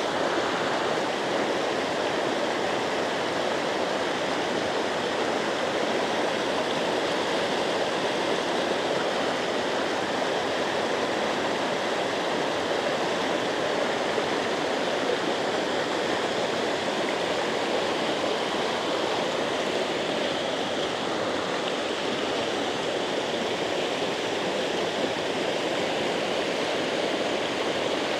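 Water rushing steadily through a channel, still pouring in: a constant, even rush with no breaks.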